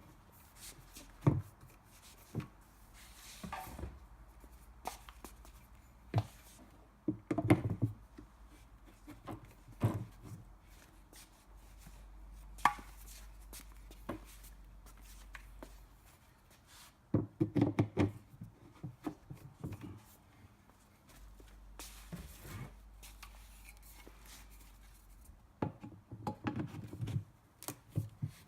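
Hard plastic parts knocking and clunking at irregular intervals, sometimes in quick clusters, as plastic cart legs are handled and pushed into the sockets of a plastic tray.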